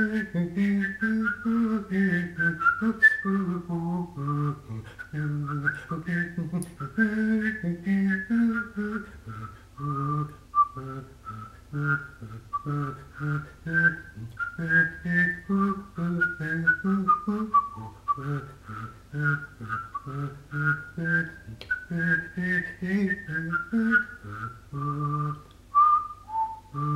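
A man whistling a tune while humming a lower part at the same time, so that one person sounds two melodic lines at once: a high whistled melody over a low hummed line, in short phrased notes with brief breaks for breath.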